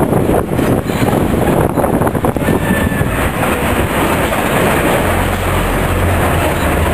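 Running noise of a moving vehicle heard from on board: engine, tyres and wind, with knocks and rattles over the first couple of seconds and a steady low hum setting in near the end.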